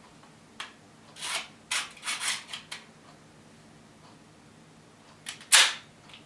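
Sharp clicks and brief sliding rasps of plastic parts as a 3D-printed model of the Hino-Komuro blow-forward pistol is handled and worked, with a cluster of clicks about one to three seconds in and a louder snap about five and a half seconds in.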